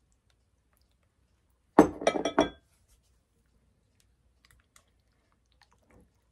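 Glass clinking several times in quick succession about two seconds in: a glass measuring cup knocking against a glass mixing bowl and the counter as it is put down. Faint soft ticks follow near the end from a silicone spatula stirring thick batter in the glass bowl.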